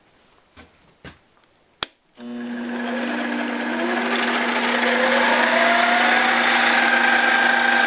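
7x12 400-watt mini metal lathe switched on with a sharp click about two seconds in, then its motor and spindle spin up. The whine rises in pitch over the next few seconds as the speed is turned up toward about 1400 RPM, then runs steadily.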